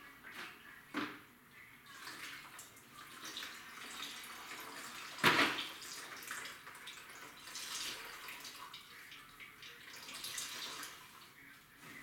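String mop being sloshed and worked in a plastic bucket of water, splashing and dripping, with one louder hit against the bucket about five seconds in.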